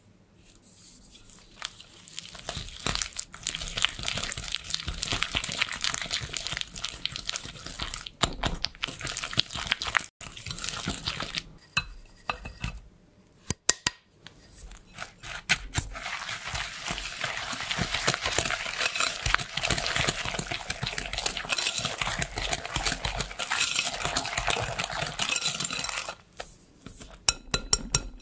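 Wire balloon whisk beating butter and peanut butter in a glass mixing bowl: continuous fast scraping and clicking of wire against glass. It pauses briefly partway through, then resumes. It ends in a quick run of ringing clinks of wire on glass.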